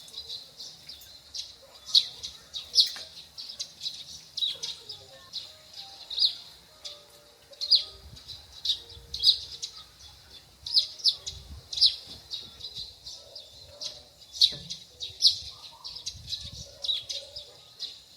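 Small birds chirping: short, high chirps repeating irregularly, about one or two a second.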